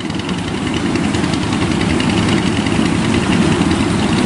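Steady rush of a shallow river flowing over rocks, a constant loud noise heaviest in the low end.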